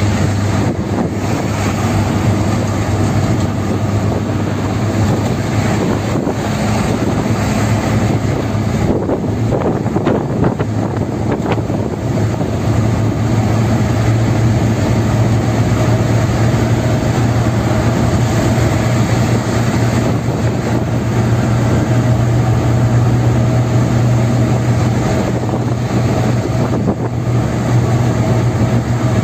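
Steady road and engine drone of a car cruising on a highway, heard from inside the car, with a low hum that grows a little louder about halfway through.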